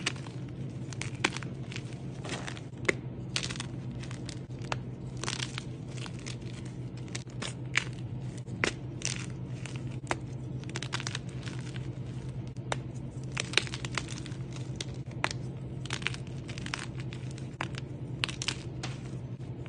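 Soft chalk blocks crushed and crumbled between the fingers into loose powder: an irregular run of crunches and crackles, several a second, over a steady low hum.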